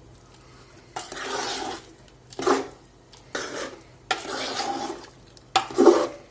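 A cooking spoon stirring and scraping thick curry gravy in a cooking pot, in about five separate strokes with short pauses between them, mixing in freshly added tomato paste.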